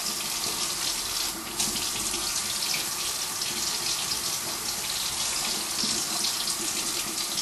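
Kitchen tap running steadily into a stainless steel sink while strawberries are rinsed under the stream.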